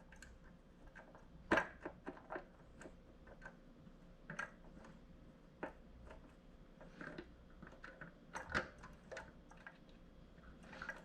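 Faint, scattered clicks and light taps of a screw and metal parts being handled while trying to line up and hand-thread the screw into the plotter's stand, with a sharper tap about a second and a half in and another just past the middle.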